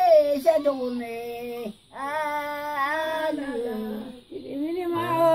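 A high voice singing unaccompanied, in long held notes that glide up and down, broken by two short pauses about two and four seconds in.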